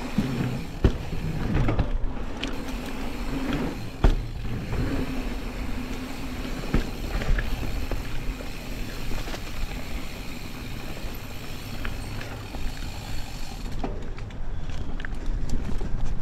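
Specialized Status 140 full-suspension mountain bike being ridden on a dirt trail: tyres rolling with continuous rattle from the bike, and sharp knocks over bumps, the loudest about four seconds in.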